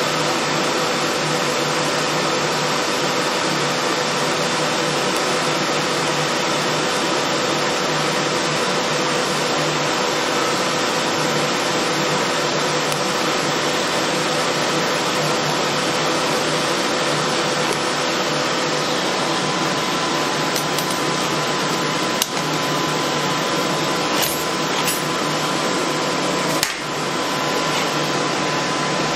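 Steady loud hiss with faint hum while a PrimeWeld TIG325x TIG welder runs: the static this welder puts into the audio. A thin steady whine joins about two-thirds of the way through, and three sharp clicks come near the end.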